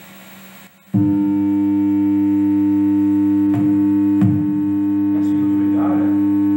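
A loud, steady 100 Hz test tone from a PC signal generator, buzzy with strong overtones, played through the amplifier that drives a CRT monitor converted into an oscilloscope. It starts suddenly about a second in, after faint background hiss, and two brief clicks come a little past the middle.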